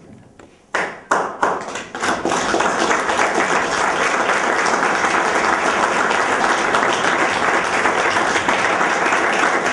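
Audience applauding: a few separate claps about a second in, building within a second into dense, steady applause.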